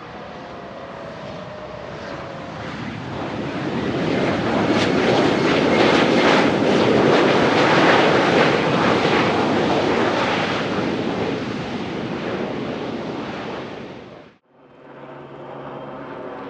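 Jet aircraft passing, its engine noise swelling to a loud peak and then fading. Near the end it cuts off abruptly and a quieter, steady engine hum follows.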